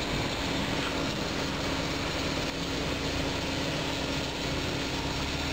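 Steady low motor hum with one constant tone.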